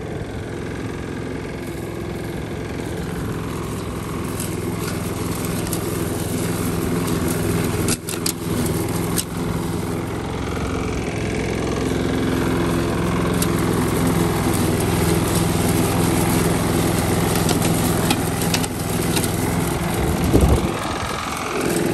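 Morrison rotary lawn mower's four-stroke engine running steadily while being pushed through grass, with a knocking from inside the engine that sounds like bearing knock.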